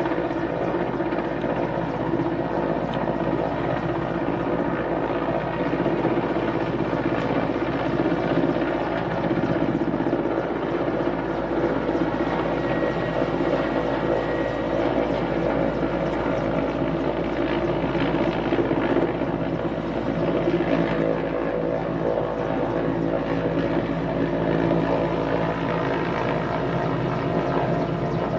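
Mil Mi-8-family transport helicopter hovering low overhead, its main rotor and twin turbine engines running with a steady, unchanging loud drone.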